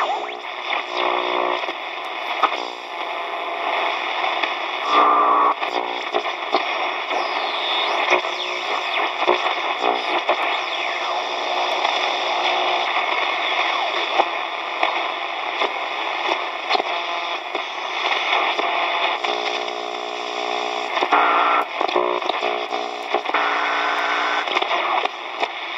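Shortwave static and hiss from a 1970 Hitachi Hi-Phonic WH-888R portable radio's speaker as the dial is turned. Brief snatches of a station's voice break through, and a gliding whistle comes about seven seconds in.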